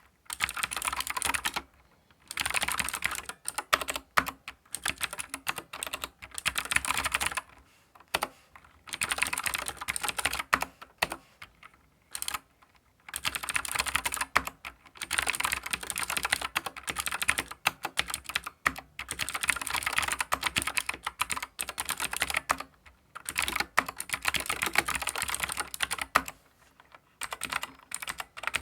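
Keychron K4 v2 mechanical keyboard with clicky blue switches being typed on fast, in runs of rapid key clicks a second or two long broken by short pauses.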